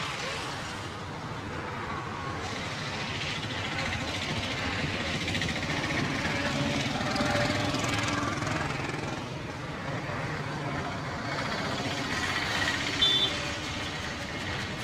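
Street ambience: traffic running steadily, with faint voices in the background. A brief, sharp, high sound stands out near the end.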